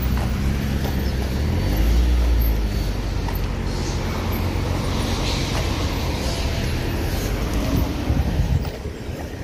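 Van engine running as it drives slowly past close by, loudest about two seconds in, then steady street traffic noise.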